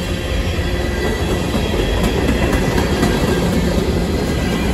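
Empty coal hopper cars of a long freight train rolling past close by: a steady rumble of steel wheels on rail, growing a little louder about half a second in.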